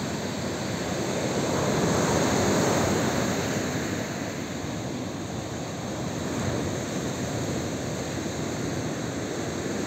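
Surf washing onto a beach, a steady rush that swells about two seconds in and again around six, with wind buffeting the microphone.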